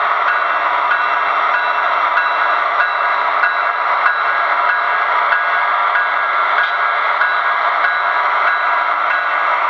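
HO scale model coal train running along the track behind a BNSF diesel locomotive model: a steady, even running noise with a few constant tones and almost no bass.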